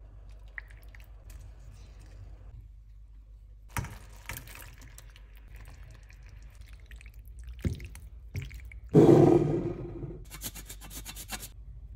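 Cooking sounds from a stainless steel skillet of thick tomato sauce: wet stirring and squelching with scattered utensil clicks. Late on comes a loud knock with a short ringing tail, followed by a quick run of rattling clicks.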